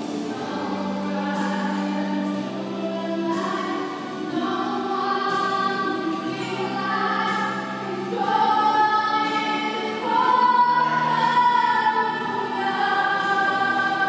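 A group of voices singing a hymn together, with long held notes that grow louder in the second half.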